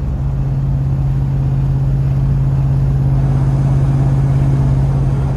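A steady, unbroken low engine hum with a wash of noise over it.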